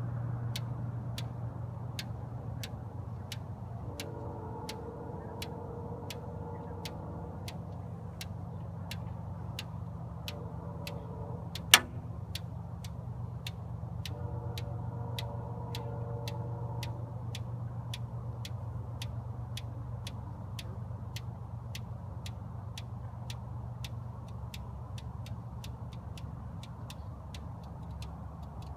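Water freezing fast into ice: a steady low hum with even ticking about twice a second and faint pinging tones that come and go. One sharp, loud crack comes about twelve seconds in.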